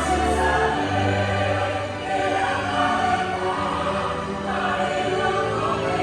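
Music with a choir singing held notes over an orchestral accompaniment.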